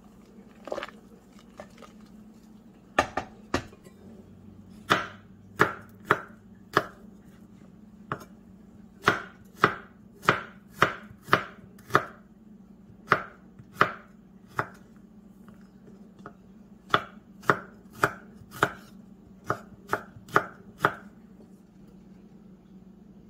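Kitchen knife slicing garlic cloves on a wooden cutting board: sharp knocks of the blade meeting the board, about one or two a second in short runs of a few cuts each. The cutting stops a couple of seconds before the end.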